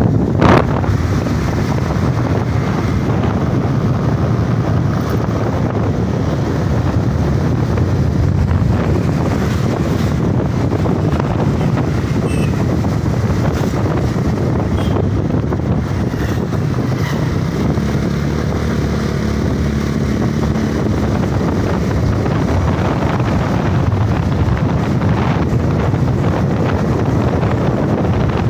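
Wind buffeting the microphone on a moving motorbike, with the bike's engine running steadily underneath.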